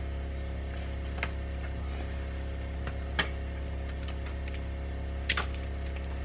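A steady low mechanical hum with a few sharp knocks or clicks over it, about a second in, about three seconds in, and near the end.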